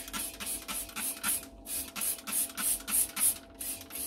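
Chrome brush-plating pad electrode, soaked in trivalent chrome electrolyte, rubbed back and forth over a metal part in a rhythmic swishing of about three strokes a second, with a faint steady hum underneath. Each pass builds up the chrome layer: the longer the pad is worked over the part, the thicker the coating.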